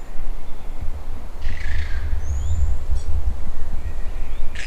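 Birds calling in forest: a thin, high up-slurred whistle repeated about every three seconds, and two short harsh calls, one about a second and a half in and one near the end. All of it sits over a steady low rumble on the microphone.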